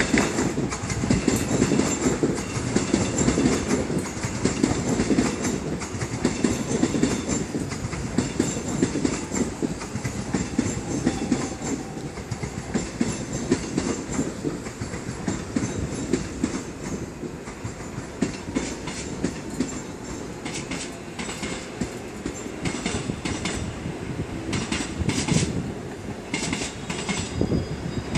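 Electric commuter train running along the rails, wheels clattering over rail joints in a steady clickety-clack rumble. From about twenty seconds in, a run of sharper clicks and clacks.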